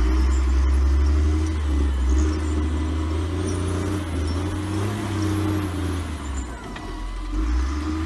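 Diesel engine of a Caterpillar 950G wheel loader running under load as it pushes snow, a deep steady rumble whose pitch rises and falls as the machine works.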